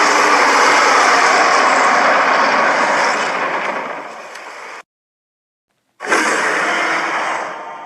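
Mixed King Kong film roar sound effects. A long harsh roar fades and cuts off abruptly. About a second later a second roar starts suddenly and fades away.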